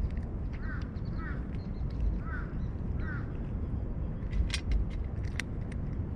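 A cat crunching dry kibble from a stainless steel tray, with sharp crunching clicks that are loudest twice in the second half. Over a steady low rumble, a bird gives short repeated calls, about four in the first three seconds.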